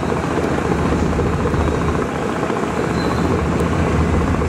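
Riverboat diesel engine running with a steady low rumble.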